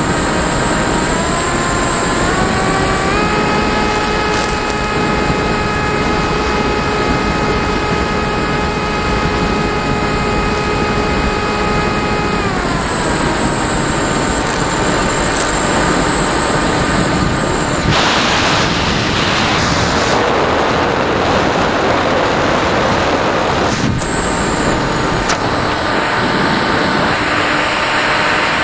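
Wind rushing over the microphone of an onboard camera on an electric RC motor glider. About a second in, the motor and propeller whine rises as the throttle comes up, holds steady, then winds down about 12 seconds in. Later there is a stretch of louder rushing air.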